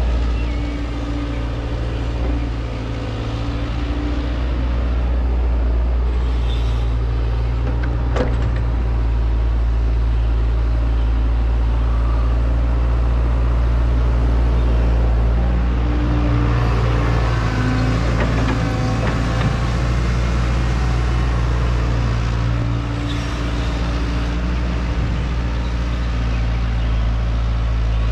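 An excavator's diesel engine running steadily, with a single sharp knock about eight seconds in.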